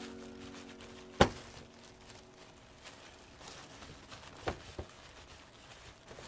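Bamboo sushi rolling mat being rolled and pressed around a sushi roll by hands in thin plastic gloves: quiet rustling and crinkling, with one sharp click of the mat about a second in and two softer taps later. The last of the background music fades out at the very start.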